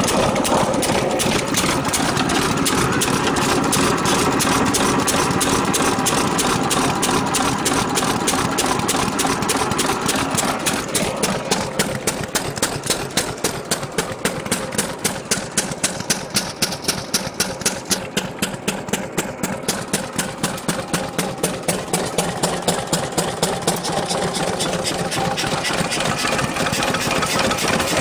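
A 7 hp Economy hit-and-miss engine, a single-cylinder stationary gas engine, running with a fast, even rhythm of strokes. In the middle stretch a sharper regular beat stands out, then it evens out again.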